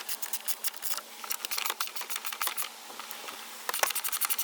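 Hand ratchet with a 10 mm socket clicking rapidly as a bolt is backed out by hand, in quick runs of clicks with a short lull near the middle.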